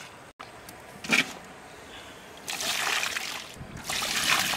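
Water splashing in two bursts of about a second each, after a short sharp knock about a second in.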